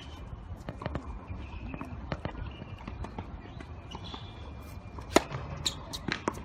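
Tennis balls being struck by rackets and bouncing on the court, with players' footsteps: a run of short sharp knocks, the loudest hit about five seconds in, followed by a few quick ones.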